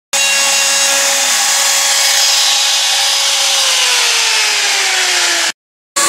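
Cordless drill running with a cutting bit in plywood, enlarging a slot. Its whine holds steady, then drops in pitch as the motor slows under load, and it stops about five and a half seconds in, starting again just before the end.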